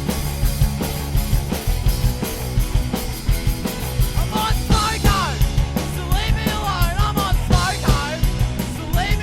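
Rock music soundtrack with a steady drum beat and bass. A wavering high melody line comes in about four seconds in.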